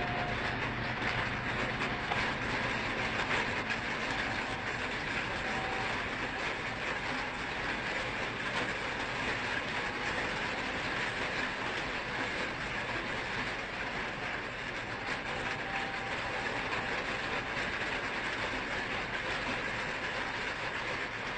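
Heavy rain falling onto a flooded street, a steady hiss of drops splashing into standing water.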